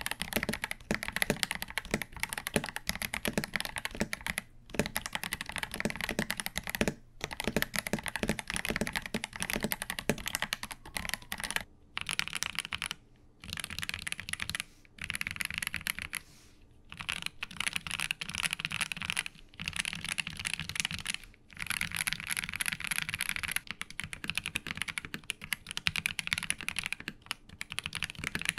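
Fast typing on mechanical keyboards fitted with factory-lubed YUNZII Milk linear switches, with short pauses. First a KBD67 Lite, then, about twelve seconds in, a Monsgeek M3 with a brighter sound.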